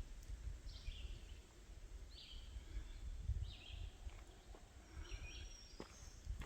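Birds chirping: a handful of short calls spread about a second apart, with a thin high whistle near the end, over a faint low rumble.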